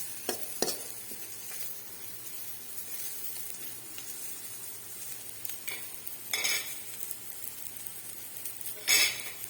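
Small onions, garlic, red chillies and tamarind frying in hot oil in a pan, sizzling steadily. A spoon stirs them, knocking and scraping on the pan a few times, loudest near the end.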